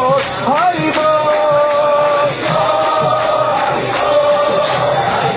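Kirtan: a crowd singing a devotional chant together in long held notes, over a steady beat of hand cymbals and drum.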